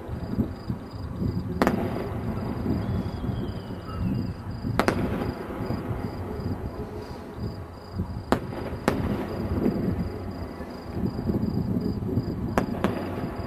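Aerial firework shells bursting with sharp bangs, about seven in all, some in quick pairs, over a steady low rumble.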